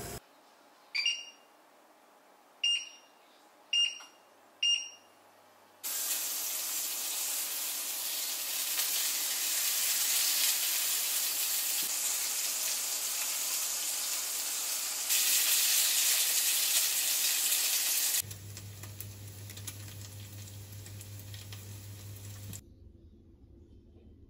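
Pork belly strips sizzling in a frying pan: a loud, even hiss that starts suddenly about six seconds in and is loudest for its last few seconds. Before it come four short sharp clicks. After it a quieter hiss with a low hum runs on for a few seconds.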